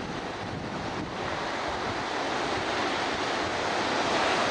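Ocean surf washing onto the beach as a steady noise, with wind buffeting the microphone; the wash grows a little louder from about a second in.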